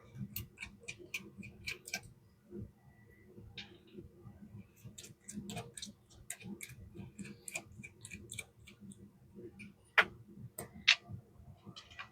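Light clicks and ticks in quick runs as the screws and small metal parts of a 1940 Vibroplex telegraph key are unscrewed and handled, with two sharper clicks near the end.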